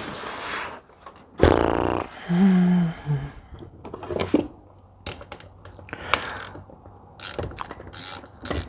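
Hand tools and sockets rattling loudly about a second and a half in, with a brief low hum after it; then, from about seven and a half seconds on, a ratchet wrench clicking in quick short strokes.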